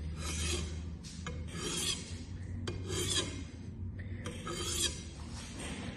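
Knife edge drawn across the abrasive stone of a fixed-angle sharpening system in light strokes, about four rasping passes a second or so apart. These are burr-minimizing strokes, made with almost no pressure to remove the burr from the freshly sharpened edge.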